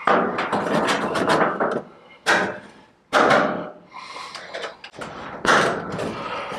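Rustling, scraping and knocking as a dryer vent duct and its clamp are worked onto the dryer's exhaust outlet: one long stretch at the start, then shorter bursts about two and three seconds in and again near the end.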